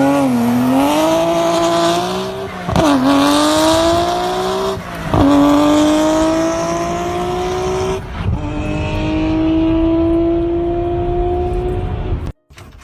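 Racing car engine accelerating through the gears. Its pitch climbs slowly, drops at upshifts about 3, 5 and 8 seconds in, and the sound cuts off suddenly near the end.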